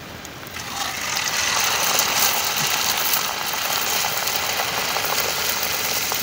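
Hot oil sizzling and crackling in a steel kadai as a puri deep-fries; the sizzle swells about a second in as the puri goes into the oil, then holds steady.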